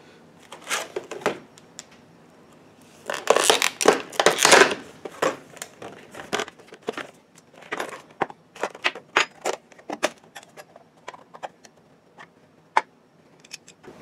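Stiff clear plastic clamshell packaging crackling and crinkling as a new air compressor pressure switch is taken out of it, loudest about three to five seconds in. After that come scattered clicks and taps of the switch and small parts being handled on a wooden workbench.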